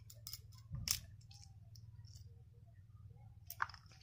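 Fresh green pea pods being split open by hand, a few short crisp snaps, the loudest about a second in and another near the end, over a steady low hum.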